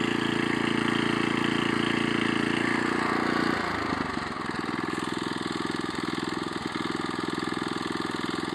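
Small engine of a two-wheel walking tractor running steadily, then throttled back about three and a half seconds in, dropping to a slower, quieter idle.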